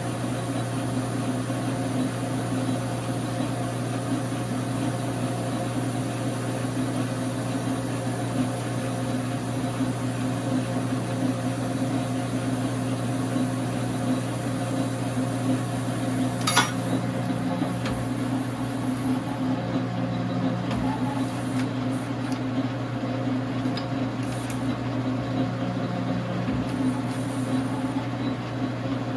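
Dar Sin 12x37 gap bed lathe running steadily, its 220 V single-phase motor and gearing giving a constant hum, with one sharp click partway through.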